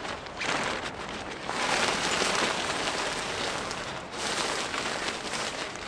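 Nylon tarp rustling and swishing as it is pulled and draped over a pole frame, in several swells of noise.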